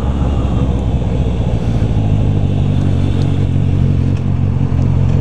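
Motorcycle engine running at a steady cruise while riding in traffic, a constant low drone with wind and road noise over it.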